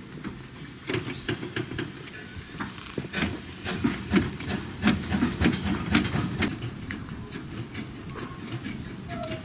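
Pair of narrow-gauge steam locomotives moving off: irregular exhaust chuffs over the hiss of steam blowing from the open cylinder drain cocks. Loudest in the middle, easing off after about six and a half seconds.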